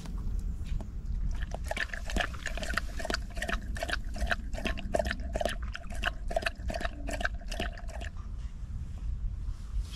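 Siberian husky lapping and licking from a small camping cooking pot: a quick run of wet lapping clicks, about four a second, that stops about eight seconds in.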